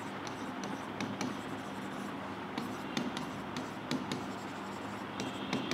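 Stylus writing numbers on an interactive smart-board screen: a string of light, irregular taps and scrapes as the figures are written.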